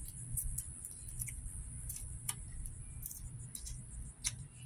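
Small irregular clicks and cracks of boiled blue crab shell being picked apart by hand, over a steady low rumble.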